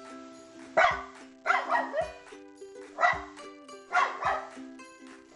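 A dog barking loudly in short single and double barks, about six in all, over steady background music.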